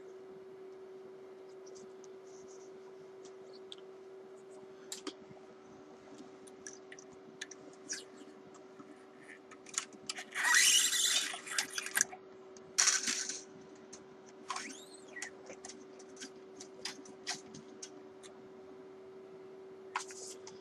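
Scattered clicks and short scratchy scrapes of guitar strings and tuning pegs being handled while an electric guitar is restrung, with two louder scraping bursts midway. A steady low hum sits underneath.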